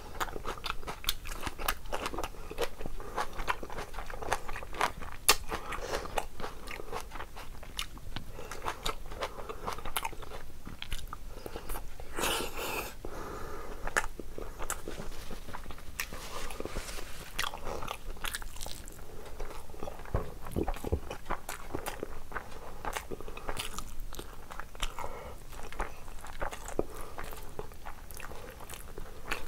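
A person eating rice and curry by hand: chewing with a steady run of sharp, wet mouth clicks and smacks.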